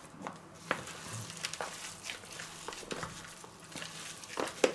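Wet squelching and squishing with irregular soft clicks, as a gloved hand kneads pieces of meat fillet through a marinade in a plastic tub.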